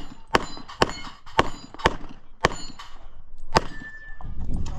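Pistol shots at a steady pace of about two a second, each followed by the ringing of a struck steel plate target. There are six shots, the last after a gap of about a second.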